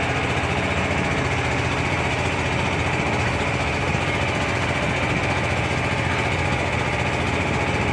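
A small boat's engine running steadily under way, with a fast, even chugging beat, heard from on board.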